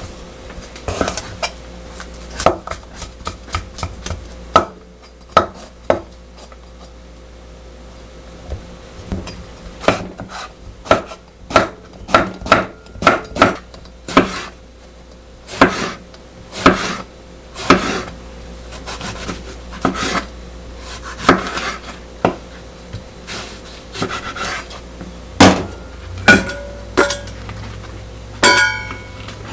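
Kitchen food-preparation sounds: utensils and dishes knocking irregularly, one or two sharp knocks a second, with a few ringing clinks near the end.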